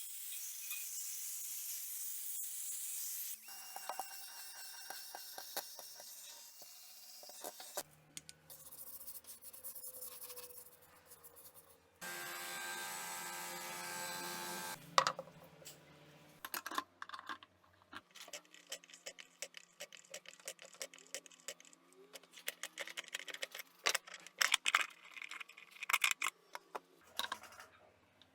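Hand-tool and metal-parts handling noises during a bearing replacement: stretches of steady hiss and scraping noise, then a long run of irregular clicks, taps and knocks in the second half.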